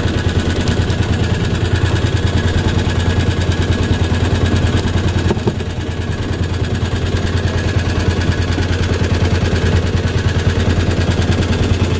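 Small fishing boat's engine running steadily under way, a fast even chugging, easing slightly about five or six seconds in.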